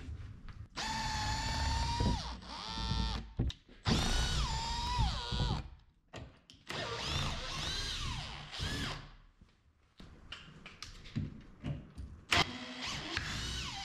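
Cordless drill-driver backing screws out of a plywood crate lid, in several separate runs of motor whine, each one to two seconds long, with the pitch stepping down and shifting within each run.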